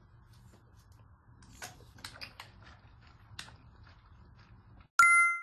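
Faint room tone with a few small handling clicks, then near the end a sudden loud bright ding, a single chime with two clear ringing tones.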